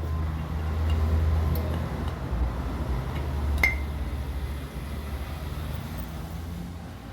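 A low steady rumble, with one sharp metallic clink that rings briefly about three and a half seconds in and a fainter click earlier.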